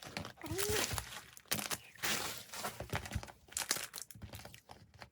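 Packaging of small merchandise crinkling and rustling as it is handled, with scattered small clicks.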